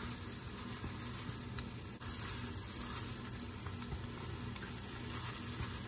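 Hot oil in a small pot steadily bubbling and sizzling as it deep-fries rice-flour- and cornstarch-coated squid strips, with more strips being dropped in.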